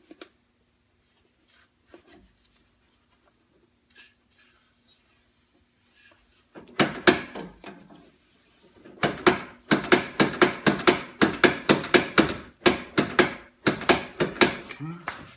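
A brief hiss of aerosol lubricant being sprayed, then a run of rasping, rubbing strokes about two a second starting midway, as the 1989 Toyota pickup's internal door mechanism is worked back and forth to spread the fresh lubricant into its stiff moving parts.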